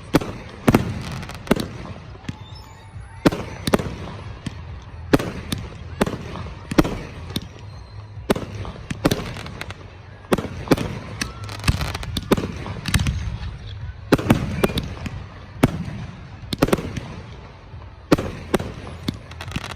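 Fireworks display: aerial shells bursting in a continuous string of sharp bangs, about one or two a second at uneven spacing, with a low rumble between them.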